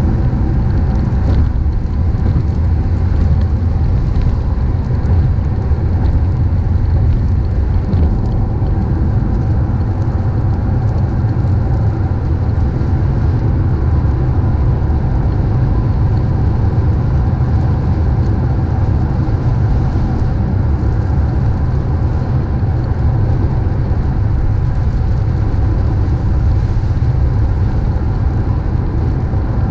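A car driving steadily on a wet road: a deep, even rumble of road and engine noise with a hiss of tyres on wet pavement above it.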